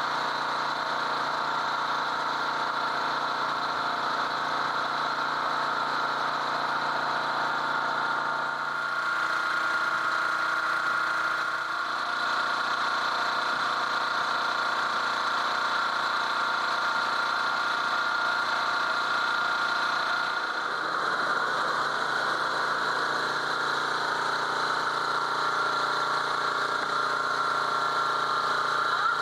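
Boat engine running steadily at an even pitch, the pattern of its tone shifting slightly twice.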